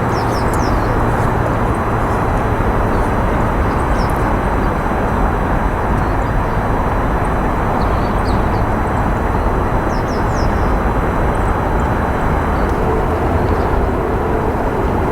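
Steady rushing outdoor background noise with a low hum beneath it. A few faint, brief high bird chirps sound now and then, a cluster near the start and another about ten seconds in.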